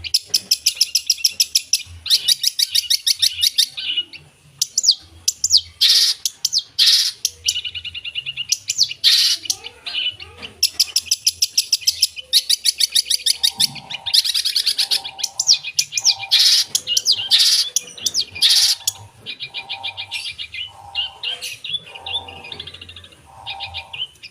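A long-tailed shrike (cendet) singing a loud, varied song of rapid high trills and chirps, packed with imitations of other birds' calls. In the second half, a lower short note repeats about once a second among the trills.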